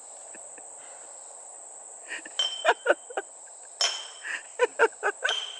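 Insects keep up a steady, high-pitched drone. From about two seconds in, several sharp clinks are heard.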